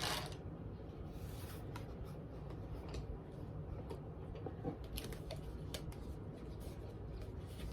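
Faint handling noises: small clicks, scrapes and rustles as small items are picked up and packed, over a low steady hum.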